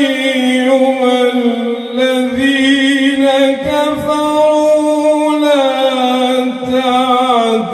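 A man reciting the Quran in a slow, melodic chant, drawing out long held notes that bend and waver with only brief breaks. The melody steps down in pitch about two-thirds of the way through.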